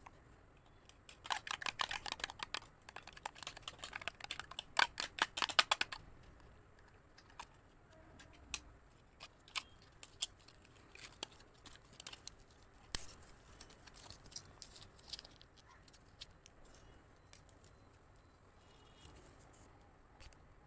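Packaging being handled and opened by hand: a dense run of crackling clicks for about five seconds, then scattered single clicks and taps.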